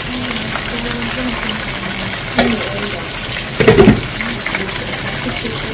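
Chicken pieces deep-frying in a large pot of oil, a steady sizzle. A single knock comes about two and a half seconds in, and about a second later a quick run of spoon clinks against a pot, the loudest moment.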